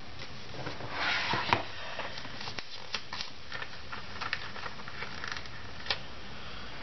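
Paper rustling as a hardbound planner is handled and laid open on a desk, with a sharp knock about a second and a half in, followed by scattered small clicks and ticks.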